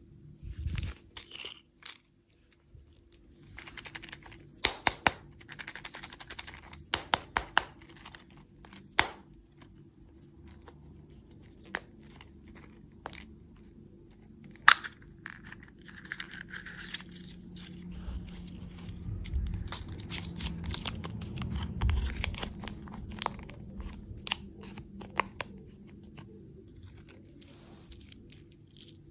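Candy packaging being torn open and crinkled close to the microphone, with irregular sharp crackling snaps.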